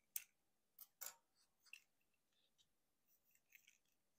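Hard plastic parts of a Transformers Legacy United Voyager Class Motormaster action figure clicking and snapping as it is handled and posed. One sharp click comes right at the start, a few more follow within the first two seconds, and then lighter ticks.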